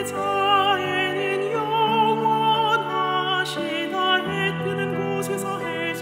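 A slow, gentle sung hymn: a woman's voice holds long notes with vibrato over a sustained instrumental accompaniment.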